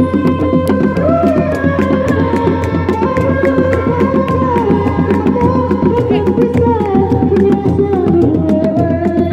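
Seni Reak ensemble playing: dog-dog frame drums struck by hand in a fast, dense rhythm, with a continuous melody line that slides and steps in pitch above them.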